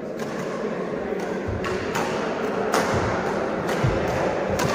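Badminton rally: rackets striking the shuttlecock back and forth, sharp clean hits every half second or so, with shoes on the court, over a steady noise of the large hall.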